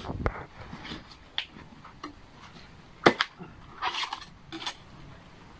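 Machete blade chopping into a green coconut's husk: a sharp chop about three seconds in, with lighter knocks and a short scrape of shaved husk around it.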